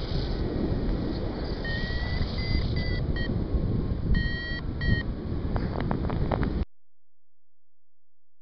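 Paragliding variometer beeping over wind rushing on the microphone in flight: a held, slightly rising tone about two seconds in, then a quick run of short beeps about four seconds in, the vario's signal that the glider is in lift. The sound cuts off abruptly near the end.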